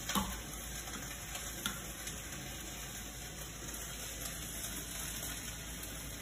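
Kale frying in a hot pan with soy and oyster sauce just added, a steady sizzle.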